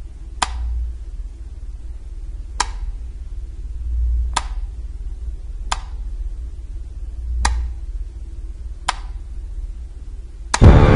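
Six sharp clicks at uneven intervals, one every one and a half to two seconds, over a low rumble. Loud music comes in suddenly near the end.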